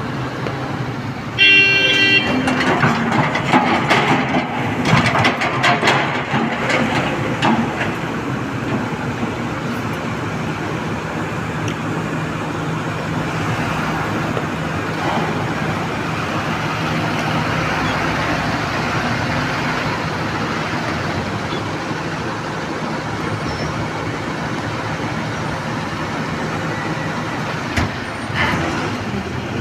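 Heavy diesel dump truck with a short horn blast about a second and a half in, then several seconds of clattering knocks. After that the engine runs steadily as the truck moves slowly across the quarry floor.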